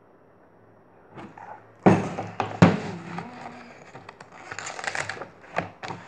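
Handling noise from about two seconds in: knocks, bumps and rustling as the recording device is picked up and turned around, with a few sharp clicks.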